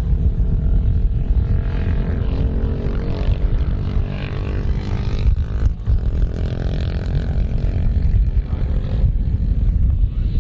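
Britten V1000 racing motorcycle's V-twin engine running and revving, its pitch rising and falling, over a heavy low rumble.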